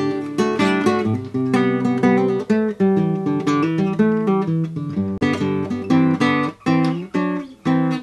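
Theme music played on an acoustic guitar, plucked and strummed with a steady beat.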